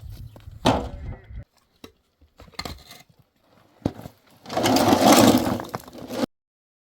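A few sharp knocks and thuds, then a loud scraping, crunching rush lasting under two seconds that cuts off suddenly.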